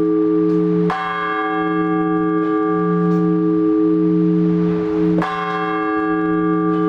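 A single large Orthodox church bell tolled in slow, measured strokes for the blagovest, the call to a service. It is struck twice, about four seconds apart, and the deep hum rings on between strokes.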